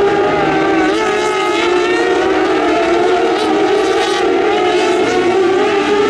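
Several kartcross buggies' high-revving motorcycle-derived engines running together in a race, the overlapping engine notes rising and falling as the cars accelerate, lift and change gear.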